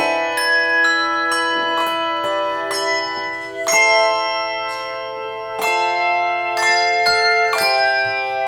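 Handbell choir playing a slow piece: chords of bells are struck every second or so and each ringing note carries over into the next.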